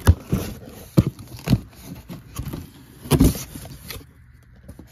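Corrugated cardboard box being opened by hand: the flaps are pulled back and handled with a handful of sharp scrapes and knocks and rustling in between, going quiet in the last second.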